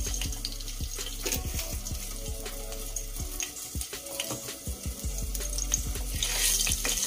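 Hot mustard oil sizzling in a kadhai as a pinch of asafoetida (hing) goes in, with a wooden spatula clicking and scraping against the pan. The sizzle grows louder near the end.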